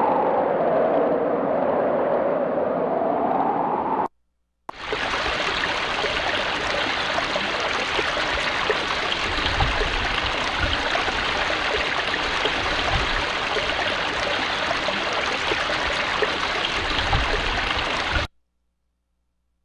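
Computer-generated tinnitus masking sound: a noise whose band slowly sweeps down and back up in pitch, cutting off about four seconds in. After half a second of silence comes a brighter, stream-like hiss with fine crackle, which stops abruptly near the end.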